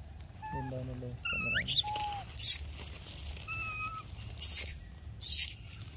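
Baby macaque squealing: four short, shrill cries that rise and fall in pitch, two in the first half and two in the second, over a steady high whine.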